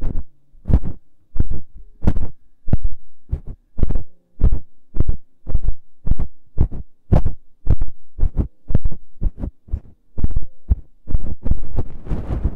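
Feather-tipped ear pick brushed over a binaural microphone's ear in regular strokes, about two a second, each a soft low thump with a brushy scratch. Near the end the strokes come faster and hissier.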